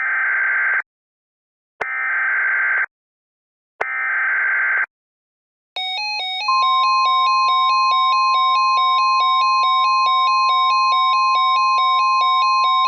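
Emergency Alert System warning opening: three one-second bursts of screeching SAME header data, a second apart. Then a buzzy alert tone switches rapidly between two pitches, about three times a second, and about half a second later a steady high tone, the NOAA Weather Radio warning alarm tone, sounds over it.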